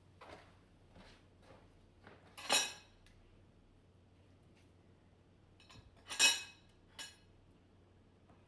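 Kitchenware clinking and tapping: two louder clinks with a short ringing tone, about two and a half seconds and six seconds in, between softer taps.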